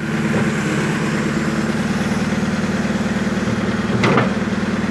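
Caterpillar 428C backhoe loader's diesel engine idling steadily with an even pulse. A brief sharper noise cuts in about four seconds in.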